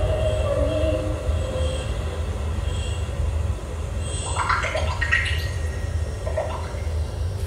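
A steady low rumble with some held tones, joined about four seconds in by a brief cluster of high, scratchy squeals, like a train's rumble and wheel screech.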